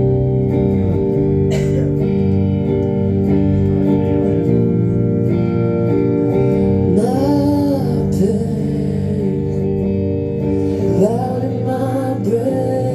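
Live acoustic guitar playing sustained chords. A singing voice comes in about seven seconds in, with the guitar continuing underneath.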